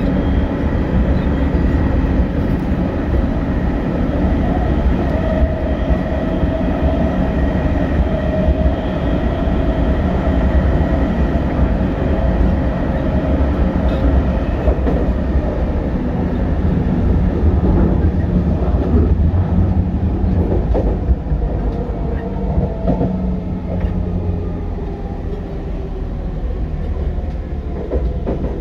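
JR East 209 series electric train running, heard from on board: a steady heavy rumble of wheels on rail, with faint steady whining tones from its GTO-thyristor inverter and traction motors. The level eases a little near the end.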